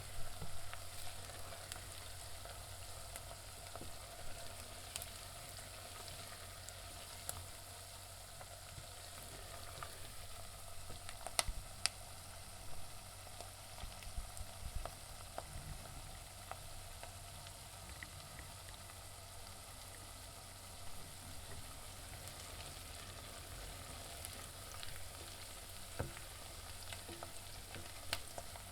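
Onions frying in a pan: a steady sizzle with scattered crackles and sharp pops, and the occasional sound of stirring.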